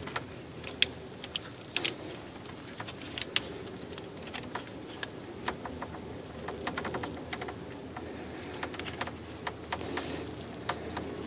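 Irregular light clicks and taps of small parts being handled as an airbag crash sensor and its wiring are worked into place.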